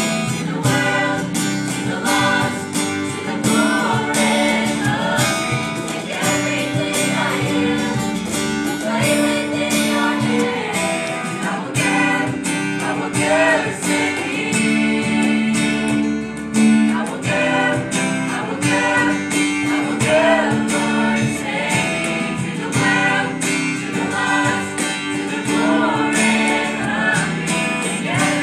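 Youth choir singing together, accompanied by strummed acoustic guitar and electric guitars, with a steady rhythm.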